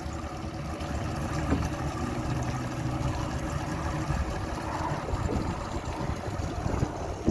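Boat engine idling: a steady low rumble, with a single knock about a second and a half in.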